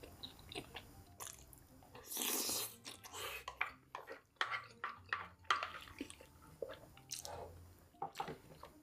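A person chewing and biting KFC crispy fried chicken close to the microphone: a string of short crunches and mouth clicks, with one louder noisy burst about two seconds in.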